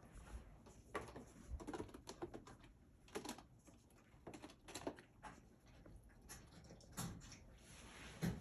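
A kitten's claws scratching and tapping at a cardboard scratching board: faint, irregular scratchy strokes and light clicks, coming in short clusters.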